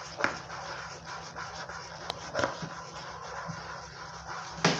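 Spoon stirring and scraping through thick dish-soap slime in a bowl, a steady rubbing sound with a few sharp clicks of the spoon against the bowl.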